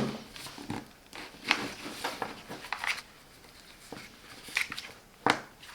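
Handling noise from a plastic power socket cube and its cable: scattered clicks, taps and rubbing as it is moved and turned, with a sharper click at the start and another near the end.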